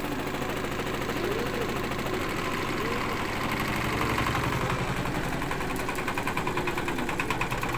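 Washing machine running with extreme vibration: a steady machine noise with a fast, even rattling knock, heavier in the second half. This is typical of a neglected machine shaking violently.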